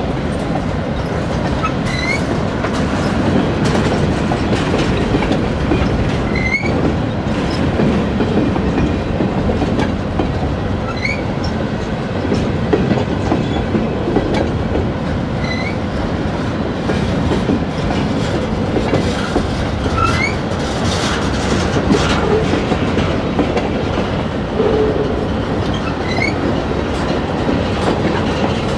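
Freight train's covered hopper cars rolling past close by: a steady rumble of steel wheels on rail with clickety-clack over the joints. A short high rising chirp sounds every four or five seconds.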